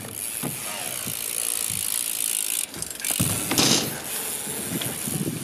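BMX bike rolling on the skatepark ramps, its rear freewheel hub clicking quickly as the rider coasts, with tyre noise on the riding surface. A louder rush of tyre noise swells about three and a half seconds in.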